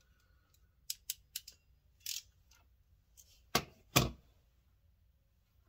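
Hand crimping tool squeezing a cable end onto a control cable: a run of small, sharp clicks, then two loud clacks close together about three and a half seconds in, as the end is crimped on.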